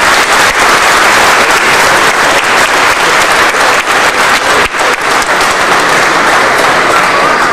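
A large audience applauding: many people clapping at once in a dense, steady patter.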